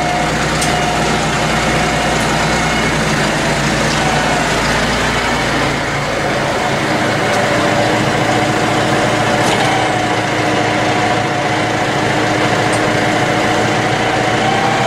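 Tractor engine running steadily, with a wavering whine over it. The deep rumble drops away about six and a half seconds in.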